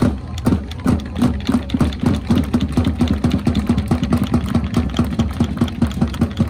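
Supporters in the stand clapping fast and densely over a steady low hum, as the players line up and bow to them.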